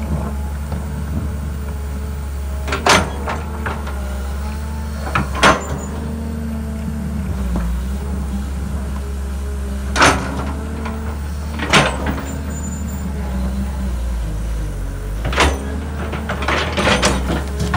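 LiuGong hydraulic excavator's diesel engine running steadily under load while its steel bucket scrapes and drags through dry dirt, with sharp metallic knocks every few seconds and a quick run of them near the end.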